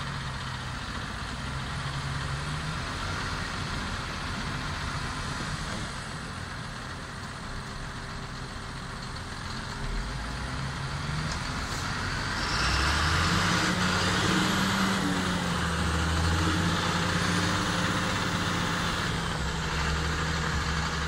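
Diesel engines of a John Deere tractor and a MAN semi-truck running, working harder and getting louder about twelve seconds in as the tractor pulls the stuck truck out of the verge back onto the road. A faint high whine rises and falls near the end.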